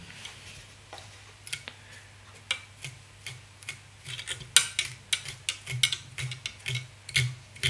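Light, irregular ticks and scratches of a fly-tying tool worked along a spun dubbing loop, picking out the fibres of the dubbing rope, with a faint steady low hum underneath.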